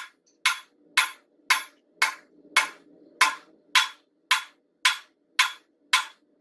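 Hand hammer striking a hot railroad spike on an anvil in a steady rhythm of about two blows a second, forging the spike into a knife blade. A faint steady hum runs underneath.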